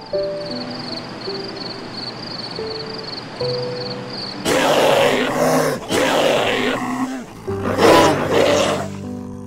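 Soft piano music, joined about halfway through by an animal's loud, rough calls in three bursts.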